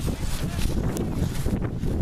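Wind buffeting the camera microphone: a rough, low rumbling noise, with a faint click about a second in.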